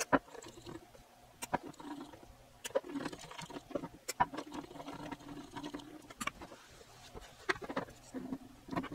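Faint, irregular clicks and light scraping from fingers turning the shaft of a potentiometer back and forth, working freshly sprayed DeoxIT contact cleaner into it.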